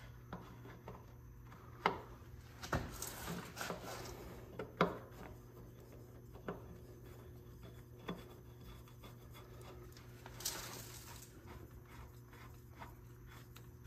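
Light handling noises as a new spin-on hydraulic filter is fitted by hand onto a Hydro-Gear transaxle: scattered small clicks and rubbing, with a brief hiss about ten seconds in, over a steady low hum.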